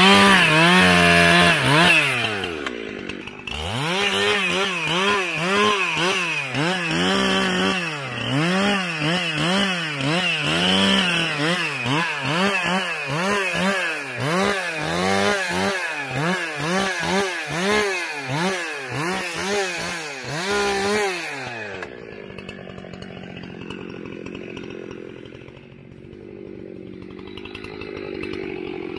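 An old two-stroke chainsaw revs up, then cuts wood with its engine pitch rising and falling about once a second as it loads and unloads in the cut. About three-quarters of the way through it drops away and goes quiet.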